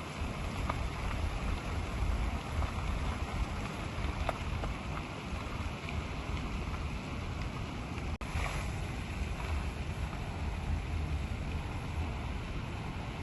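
Steady rushing outdoor noise with a heavy low rumble, like wind on the microphone, broken by a very brief dropout about eight seconds in.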